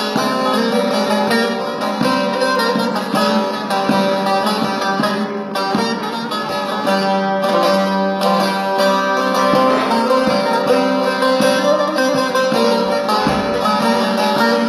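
Instrumental break of a Turkish song with no singing, led by a plucked string instrument over the accompaniment.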